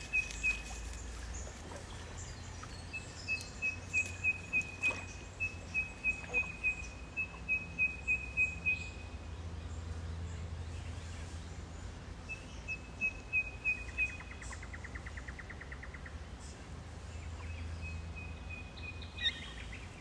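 A bird calling runs of short, evenly spaced notes on one pitch, about three a second, starting and stopping several times over a low background rumble.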